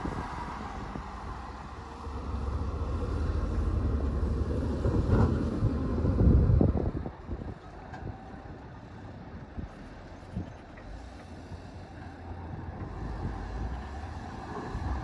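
Diesel engine of heavy earthmoving machinery rumbling. It grows louder a couple of seconds in and peaks with some knocks about six seconds in, then drops back to a lower steady running.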